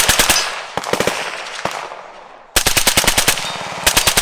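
AR-15-style rifle with a Digital Trigger Technologies Digitrigger fired in rapid strings of about ten shots a second, emptying the rest of the magazine. A burst ends just after the start, then a few shots and a lone shot follow. After a pause of about a second come two more quick bursts near the end.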